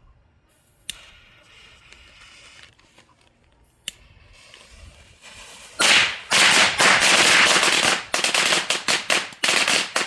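Black Cat firecrackers exploding in a fast, crackling run of bangs from about six seconds in, the whole string going off. Two single sharp cracks come before it.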